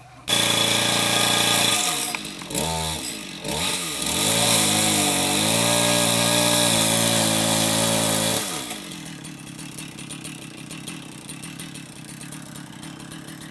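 Two-stroke chainsaw throttled up hard, its pitch dipping under load about two to four seconds in as it cuts a limb, then running high and steady before dropping back to idle after about eight seconds.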